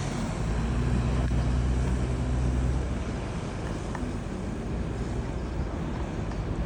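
A motor vehicle's engine running with a steady low hum over a constant rushing noise. The hum is strongest in the first three seconds, then eases.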